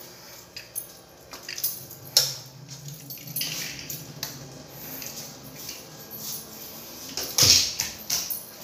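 Scattered clicks, knocks and light rattles, with a sharp knock about two seconds in and a louder thump near the end. A faint low hum runs through the first half.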